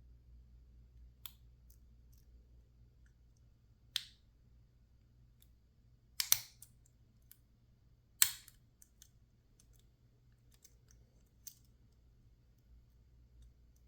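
Lockpicking tools working in a PacLock 410 Pro padlock: scattered sharp metallic clicks and ticks, a few louder ones about six and eight seconds in, with faint ticks between.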